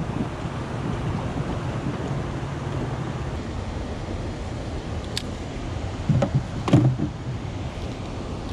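Steady rushing background of tailwater below a dam, with a low hum that fades out about three seconds in. Two dull knocks a little past the middle, from gear handled in the canoe.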